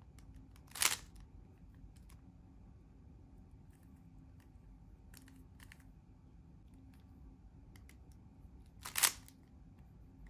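3x3 speed cube being turned by hand, its layers giving soft scattered clicks, with two sharper clacks about a second in and near the end.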